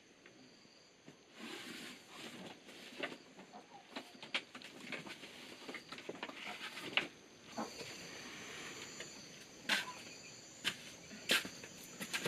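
Irregular rustling with many sharp clicks and knocks, the loudest a few single snaps in the second half, over a steady high insect chirring.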